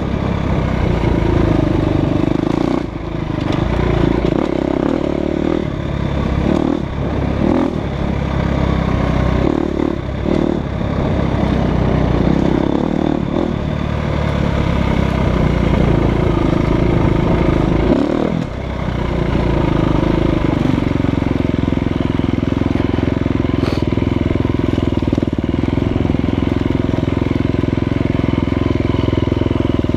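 2015 Husqvarna FE350's single-cylinder four-stroke engine running under load on a dirt trail, the revs rising and falling with the throttle. It drops away briefly about three seconds in and again just past halfway, then holds a steady pitch for the last third.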